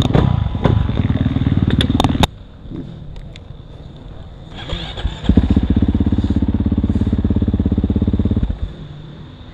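KTM 450 single-cylinder four-stroke dirt bike engine running at low speed with a few sharp clicks, cutting out abruptly about two seconds in. After a quieter lull it comes back about five seconds in, runs steadily, and cuts out again near the end.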